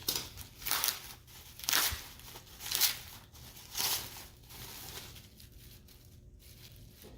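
Packing material being crinkled and torn by hand as a well-wrapped package is opened, in about five short rustling bursts over the first four seconds, then quieter.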